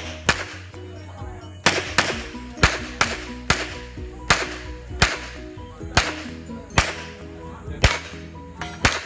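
Handgun shots fired in a practical shooting course of fire: about a dozen sharp cracks, each with a short echo, spaced roughly half a second to a second apart, over background music.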